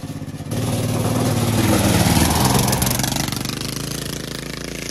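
Go-kart's small engine idling, then opened up hard about half a second in as the kart takes off over gravel, with its tyres kicking up gravel. It is loudest around two seconds in, then fades as the kart drives away.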